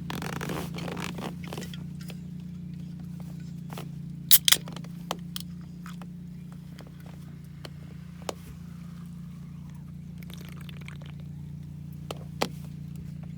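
Rustling and handling noise with a few sharp knocks or clacks, the loudest a quick pair about four seconds in, over a steady low hum.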